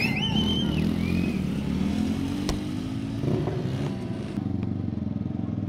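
Motorcycle engine running, its pitch climbing as it revs up about two seconds in, with a single sharp click near the middle.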